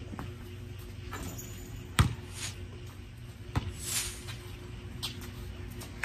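A basketball bouncing on an outdoor concrete court: a few separate thuds, the loudest about two seconds in, with a brief scuffing sound around four seconds.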